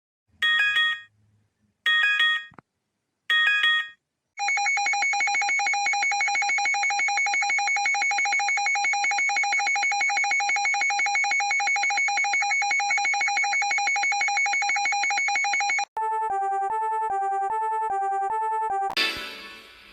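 Electronic emergency alert tones: three short chimes, then a long steady pulsing alarm tone, then about three seconds of a tone alternating between two pitches, ending in a brief noisy burst that fades.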